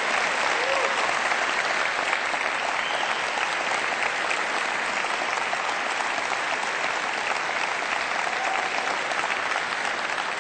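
Audience applauding: many hands clapping in a steady, dense patter that eases slightly near the end.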